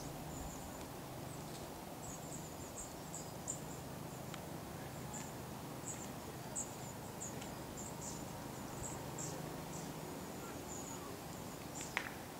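Small birds giving high, thin chirps on and off over a quiet garden ambience, with a faint low steady hum beneath.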